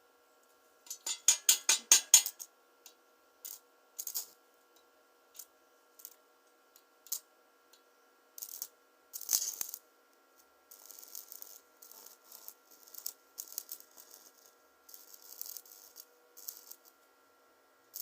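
Small metal parts clicking and rattling: a quick run of sharp clicks about a second in, then scattered clicks and short scraping rattles, over a faint steady hum.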